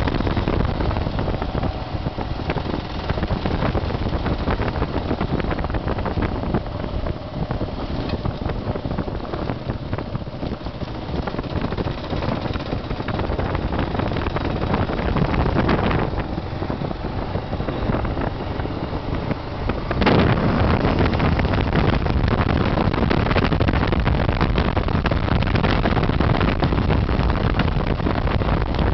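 Kawasaki KLR650's single-cylinder engine running under way, with wind buffeting the microphone. About twenty seconds in there is a sharp knock, and the sound is louder after it.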